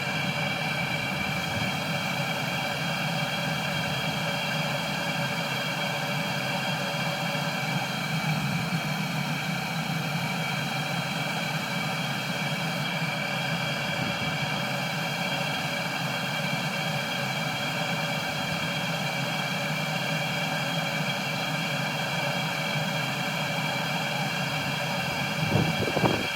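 Chinese 12 V diesel air heater running steadily: a constant fan whine over a low burner hum, with no break or change.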